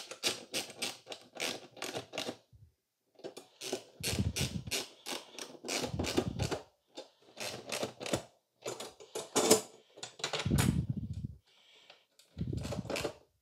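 Socket ratchet clicking in quick runs, about four clicks a second, as M8 bolts are tightened through a steel TV wall-mount bracket. Duller knocks from handling the bracket and bolts come between the runs.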